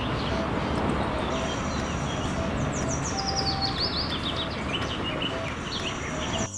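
Concrete mixer truck running, a steady even noise, with birds chirping high above it in quick falling runs of chirps.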